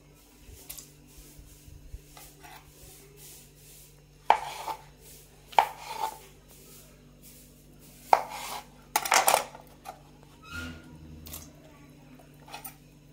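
Knife cutting button mushrooms on a cutting board: about half a dozen sharp knocks and clinks, spaced a second or more apart, as the blade strikes the board.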